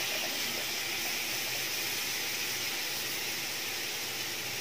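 Chopped onion, carrot, beans and capsicum sizzling in a large metal pot with a spoonful of soy sauce just added: a steady, even hiss.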